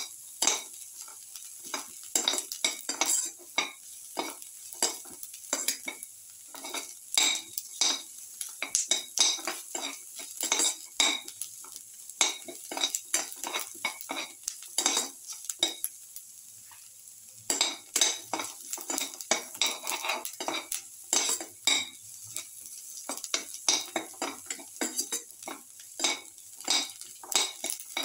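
Spatula scraping and stirring sliced onions and garlic cloves as they fry in oil in a steel pan: quick repeated scrapes, about two a second, over a steady sizzle, with a short pause in the stirring a little past halfway.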